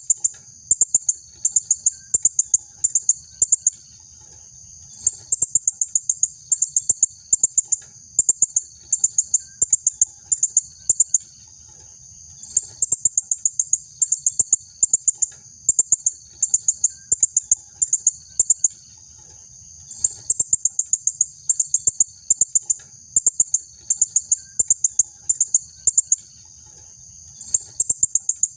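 Female blue-crowned hanging parrot (serindit) calling: rapid strings of very high, sharp, thin chirps in short bursts about once a second, with a few brief pauses.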